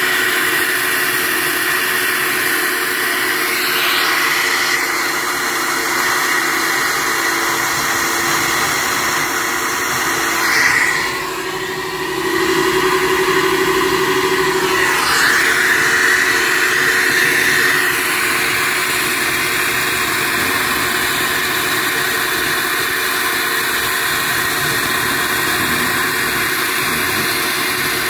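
SuperFlow flowbench running steadily, pulling air through the port of a cylinder head: a loud rushing hiss over a steady hum. About 11 seconds in, the hiss drops for a few seconds and the hum swells, then the steady rush returns.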